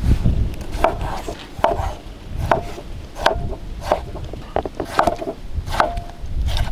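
Repeated chopping blows of a blade into wood, about one stroke every 0.8 s and eight in all, each with a short ringing tone.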